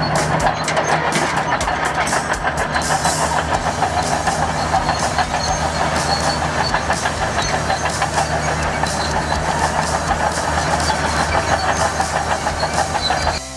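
Heavy diesel engine of a construction machine running steadily with a fast, even throb. It stops suddenly near the end.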